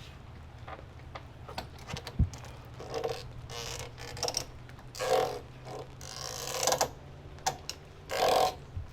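Creaking and knocking of a backyard ninja-obstacle rig's hanging rings and holds as a person swings across it, in several loud bursts with scattered sharp knocks between.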